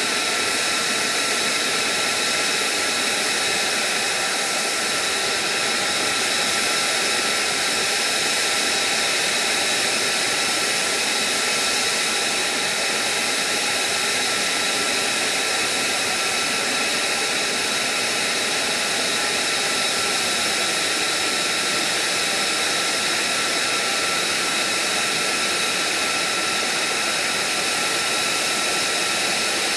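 F-35's Pratt & Whitney F135 turbofan idling on the ground: a steady loud rush with a high-pitched whine made of several steady tones.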